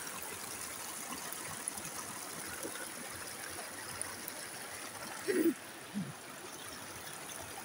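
Creek water running over rocks, a steady rushing hiss. About five seconds in there is a brief low voice sound, with a shorter one just after.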